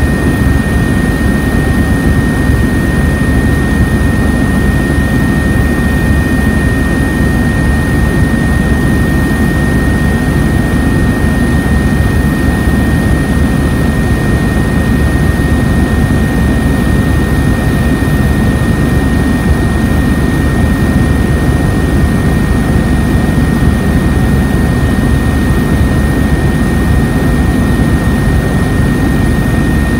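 Aircraft cabin noise: the steady, loud drone of the engines and rushing air, with a constant high whine over it, heard from inside the plane.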